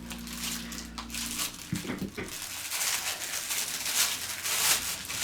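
Plastic packaging crinkling and rustling as a small parcel is opened and handled, the rustle growing busier in the second half.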